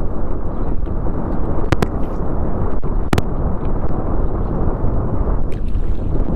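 Wind buffeting the microphone in a continuous loud, rough rumble, with a few short sharp clicks about two, three and five and a half seconds in.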